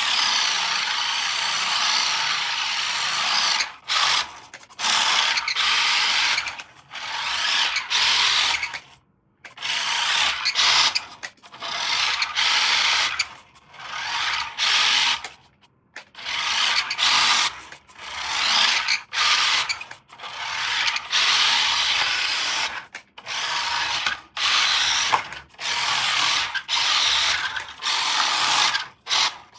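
Repeated rasping, scraping noise in bursts of about a second each, with short gaps between them.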